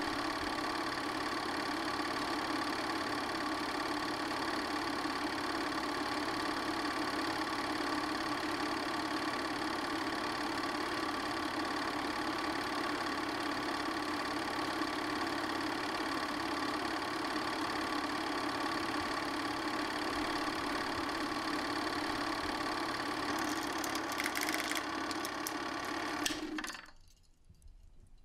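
8mm film projector running with a steady mechanical whirr and fast clatter. Near the end there is a spell of clicking, then the sound cuts off.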